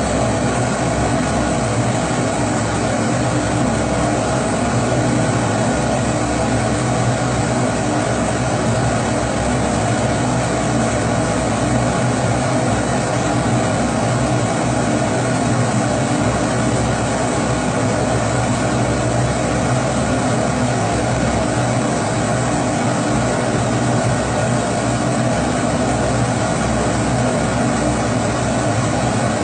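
Kerosene pressure stove (Primus-type burner) burning steadily: a constant, even rushing sound of the pressurised flame with a low hum beneath it.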